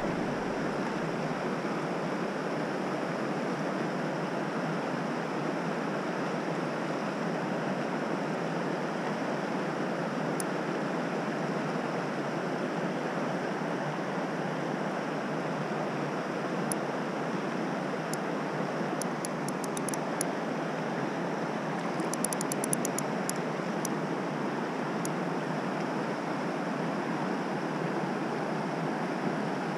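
Steady rush of flowing stream water over a shallow riffle. Brief runs of faint rapid clicking come about two-thirds of the way through.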